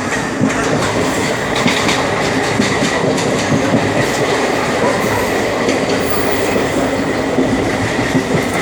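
Train running along the track: a steady rumble with wheels clattering over the rail joints.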